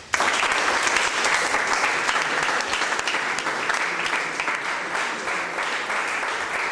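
Audience applauding, breaking out suddenly and keeping up a steady clapping.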